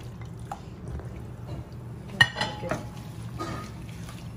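Stainless-steel cookware clinking: one sharp, ringing metallic clink about halfway through, then a few softer knocks, over a steady low hum.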